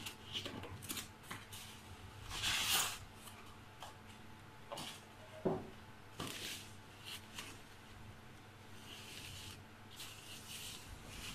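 Thin plastic protective bag rustling and crinkling as hands pull it off a flat-screen monitor panel. It comes in short handling bursts with a few light knocks, the loudest rustle about two to three seconds in.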